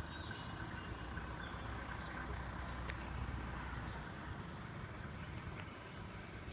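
Outdoor city ambience: a steady hum of distant road traffic with a low rumble that eases about two-thirds through, and a few faint high chirps near the start.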